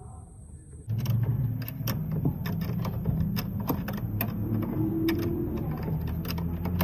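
Hand ratchet wrench clicking in short, irregular runs as it turns the nut on the rear shock absorber's upper mount, starting about a second in, over a steady low hum.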